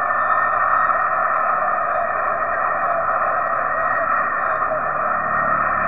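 Jet engines of a twin-engine widebody cargo jet running at takeoff power during its runway roll, a steady even rushing noise.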